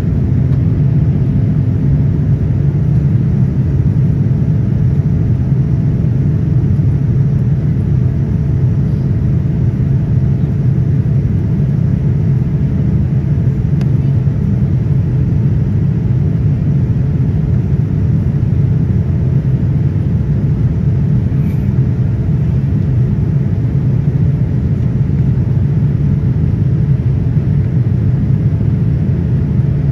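Airliner cabin noise: a steady, even rumble of the engines and airflow, with a faint steady hum above it.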